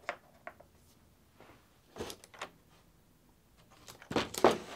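Light taps of small plastic figures being set down on a tabletop, then a clear plastic blister tray being handled, crinkling about four seconds in, the loudest sound.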